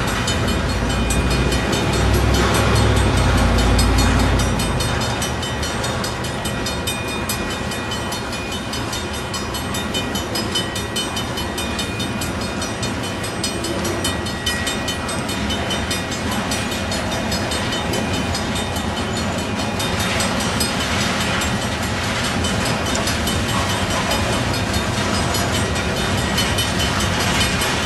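Freight train's tank cars rolling past at a grade crossing: a steady rumble and clatter of steel wheels on rail, with a deeper, louder rumble for the first four seconds or so.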